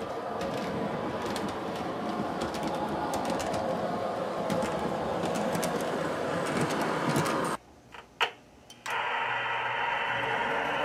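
Model CTA 'L' train running on layout track: a small electric motor whirring, with scattered clicks of the wheels over rail joints and switches. About three-quarters through the sound drops out for a moment, then a steadier hum resumes.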